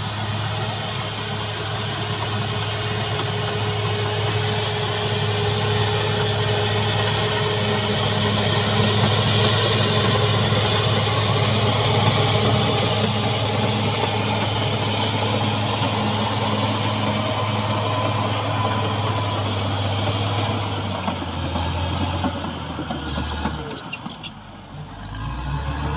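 CAT D6R XL bulldozer's diesel engine running steadily, with a broad hiss and rattle over its low note. A little past twenty seconds in, the engine note drops and the sound falls away, quietest about two seconds before the end, then comes back up.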